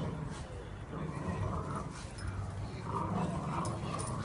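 Dogs growling in play during a tug-of-war over a plush toy: low, rasping growls that come in repeated stretches.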